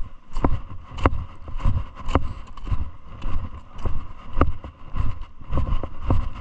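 Footsteps of a hiker walking on a loose gravel and stone mountain path, a crunching step about twice a second.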